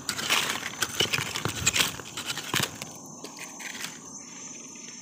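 Dry leaf litter crackling and rustling as it is stepped on or handled, dense for about three seconds and then fading to occasional crackles. Insects trill faintly and steadily in the background.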